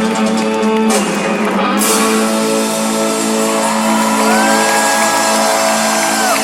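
Live rock band music with electric guitar: long sustained chords and held notes, with a gliding held note in the second half, as a song winds toward its close. Crowd shouting can be heard over the music.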